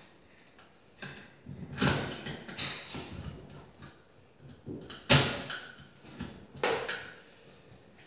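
Knocks and scraping from a screwdriver working at a metal electrical box set in a plaster wall, with wires rustling. Three louder knocks come about two, five and just under seven seconds in, the one at five the sharpest.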